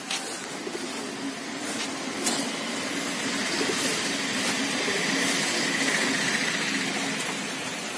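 A steady rushing hiss that swells in the middle, with pigeons cooing faintly underneath.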